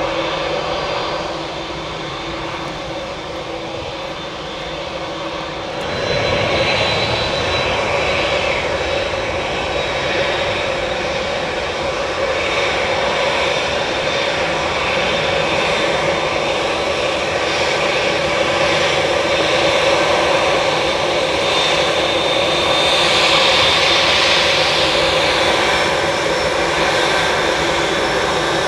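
Boeing 787-10 Dreamliner's twin turbofan engines at taxi power as the jet taxis: a steady jet whine over a low rumble, getting louder about six seconds in and swelling again near the end.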